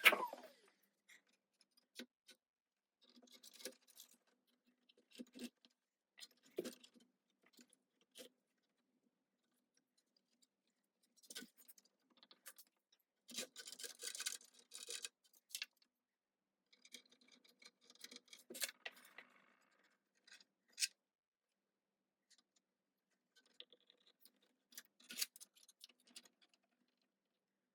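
Faint, scattered clicks, taps and brief scrapes of small hard objects being handled, with a sharper click about three quarters of the way through.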